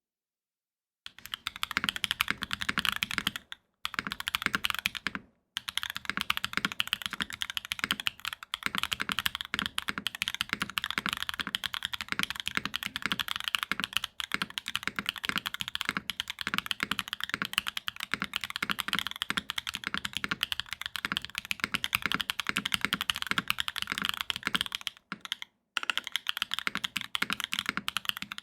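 Fast, continuous typing on a JiU TKL mechanical keyboard with stock Gateron Type R switches in an aluminium plate: a dense clatter of keystrokes that starts about a second in and pauses briefly three times.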